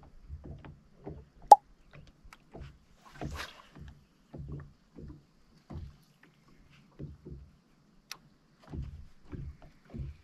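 Small waves lapping against a bass boat's hull, making soft, irregular low knocks about every half second. A sharp click about a second and a half in, and a fainter one near the end.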